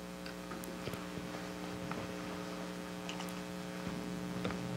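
Steady electrical hum with faint hiss and a few faint ticks.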